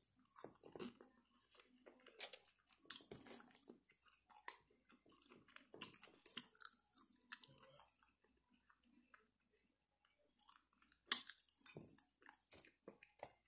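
Close-miked chewing of French fries: faint, irregular mouth clicks and small crunches, thinning out for a few seconds in the middle before picking up again.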